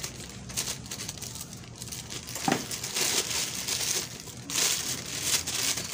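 Plastic packaging bag crinkling and rustling as it is cut and pulled off a pop filter, busier in the second half, with a single sharp click about halfway through.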